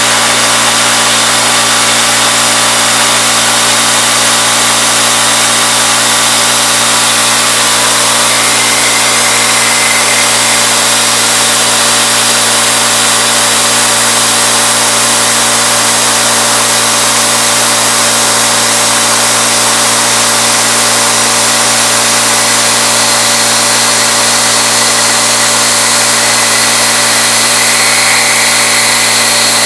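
CNC-retrofitted Bridgeport knee mill cutting aluminum with a 3/8-inch end mill, the spindle turning at 2200 RPM: a loud, steady machining noise, motor and spindle hum under a continuous cutting hiss.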